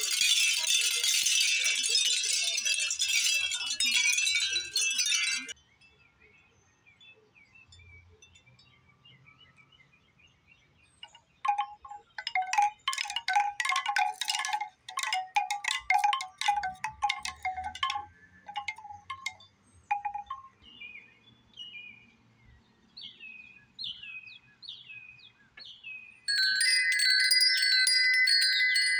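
A capiz shell wind chime shaken by hand, its shell discs clattering together for about five seconds. A bamboo wind chime is then knocked about, its hollow tubes clacking for about eight seconds. Near the end a large metal tube wind chime is set swinging and rings with sustained, overlapping tones.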